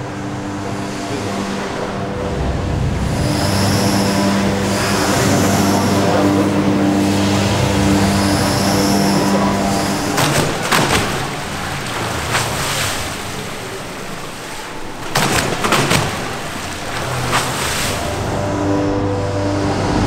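Hydraulic wave machine of a large wave flume running with a steady hum, a high whine rising and falling twice in the first half. Water rushes and surges in the flume. In the middle the hum drops back while the churning water slaps and splashes against the channel walls; the hum returns near the end.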